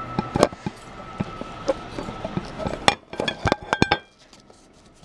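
Sharp clicks and light clinks of a plate and the camera being handled on a table. The loudest comes about half a second in and a quick cluster follows about three seconds in, then it goes quieter.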